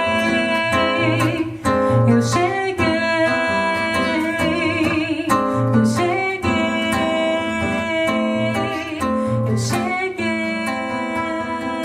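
Acoustic guitar plucked and strummed in a gentle bossa/MPB style, with a voice singing over it.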